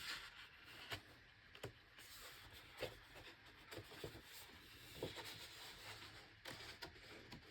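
Faint paper handling: the large pages of an oversized hardcover art book being moved and turned, with scattered soft rustles and light taps.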